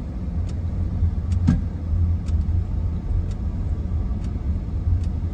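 A car driving slowly, heard from inside the cabin: a steady low rumble of engine and tyres, with a few light clicks scattered through it.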